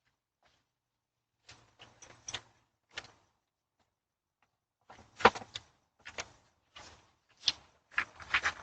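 A scatter of short, sharp knocks and clacks, a few at a time, starting about a second and a half in and coming more thickly in the second half.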